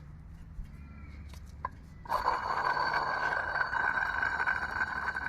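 A removed Porsche Boxster 986 water pump spun by hand, starting about two seconds in, giving a rough, whirring noise that eases off only slowly. The noise comes from the pump's worn-out bearing.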